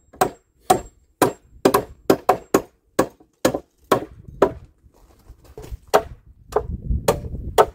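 Two hand hammers, a finishing hammer and a framing hammer, driving nails into wooden lumber: quick, uneven strikes, some overlapping, about two or three a second, with a short pause about two-thirds of the way in.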